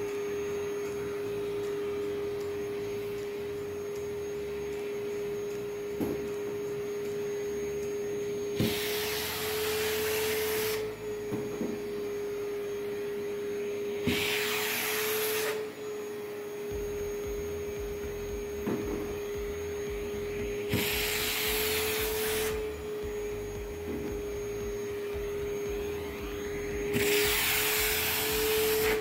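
Toy vacuum cleaner running with a steady, tone-like motor hum, broken by four short hissing bursts a second or two long and a few light clicks and knocks.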